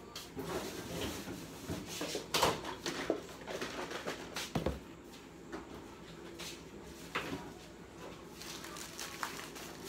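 Kitchen items being handled and set down on a counter: scattered light clatter and knocks, with sharper knocks about two and a half and four and a half seconds in.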